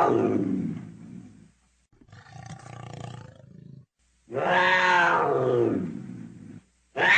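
Leopard calling: long drawn-out calls of about two seconds each that fall in pitch. A fainter, rougher sound comes between the first two, and a third call starts near the end.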